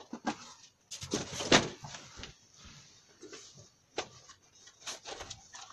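A few sharp clicks and knocks, with a short, louder noisy sound about a second and a half in.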